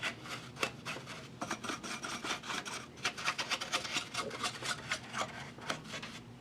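Paintbrush bristles dusting the inside of an audio amplifier, in quick, irregular scratchy strokes.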